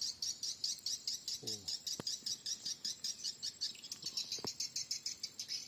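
Swiftlet twittering calls: a rapid, even run of high chirps, many a second, with two faint clicks partway through.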